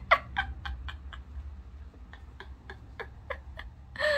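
A small dog yapping in a quick run of short, evenly spaced barks, about three a second.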